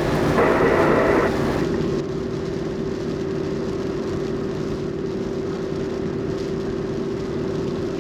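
Steady road, rain and wind noise inside a Jeep Wrangler's cabin on the move, with a constant drone under it. About half a second in, a brief snatch of thin, narrow-sounding voice is heard, and the sound changes slightly a little under two seconds in.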